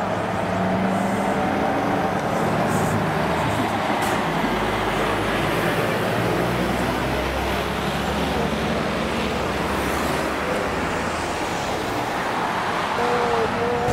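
Diesel engine of a Scania articulated lorry driving past at low speed, its low rumble strongest as it passes close about five to seven seconds in, over general road traffic.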